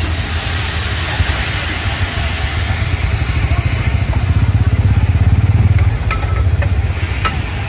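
Vegetables sizzling in a hot frying pan while a metal spatula stirs and scrapes them, with a few sharp clinks near the end. A steady low rumble runs underneath and grows louder past the middle.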